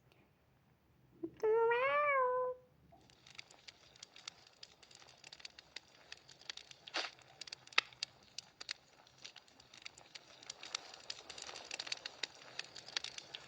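A cat meows once, a single call about a second long that rises and then falls in pitch. Afterwards come scattered light clicks and taps of things being handled.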